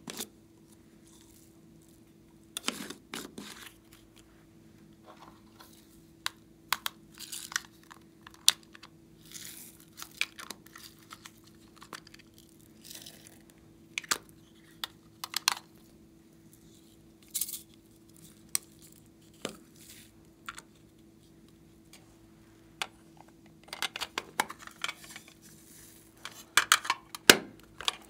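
Small plastic containers handled, opened and emptied by hand, and beads and glitter shaken out into glass dishes: scattered clicks, taps and rustles, busiest near the end.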